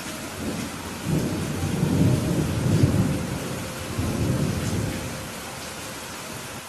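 Thunder rumbling over steady rain: a low rumble swells about a second in, peaks in the middle with a second surge around four seconds, then dies away.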